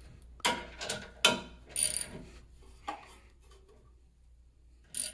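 Ratchet wrench tightening a heavy-duty mounting bolt: several short bursts of clicking and metal clinks, unevenly spaced, with the last one near the end.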